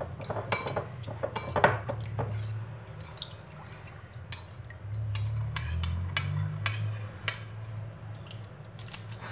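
Metal spoon stirring lemon juice and salt in a glass bowl, clinking and scraping against the glass in quick, irregular ticks. A low hum swells for a couple of seconds in the middle.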